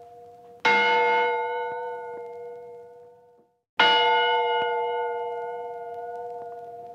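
A bell tolling: two strokes about three seconds apart, each ringing out and slowly fading.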